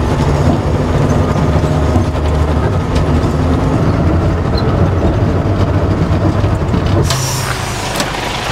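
Engine and road noise of a four-wheel-drive shuttle bus driving on a gravel track, heard from inside the bus. About seven seconds in, the engine note drops away and a short hiss of compressed air follows as the bus comes to a stop.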